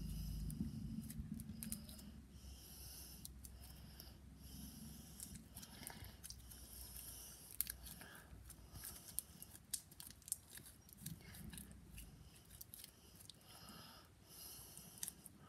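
Sticky slime being stretched and squished between fingers, giving faint, irregular clicks and small sticky pops as it pulls away from the skin. A low rumble fades out over the first couple of seconds.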